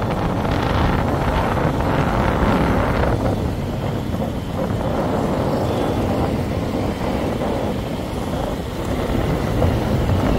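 Steady wind rushing over the microphone, mixed with vehicle and road noise from riding in moving traffic.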